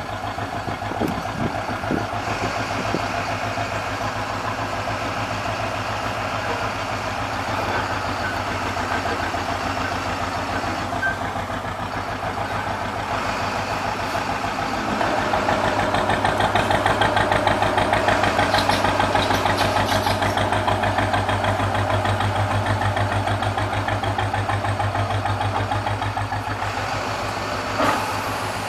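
Small pusher tug's inboard engine running with a steady, even exhaust beat. About halfway through it is throttled up and runs louder as the tug gets under way, with one short knock near the end.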